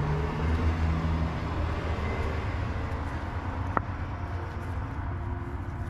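Low steady rumble and hum, fading slowly, with one sharp click a little under four seconds in.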